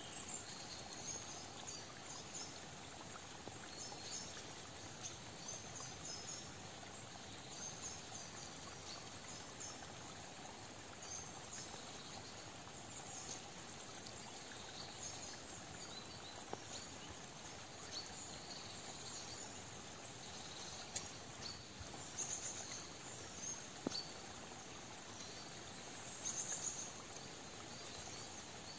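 Autumn forest ambience: a steady soft hiss with scattered short, high-pitched chirps, a few louder chirps coming in clusters late on.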